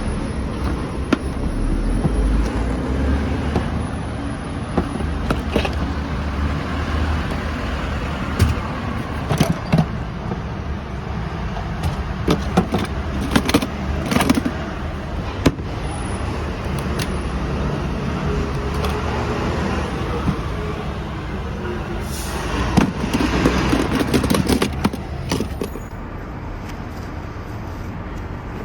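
Steady low rumble and hiss of city traffic, with scattered sharp clicks and knocks, in clusters about a third of the way in and again near the end.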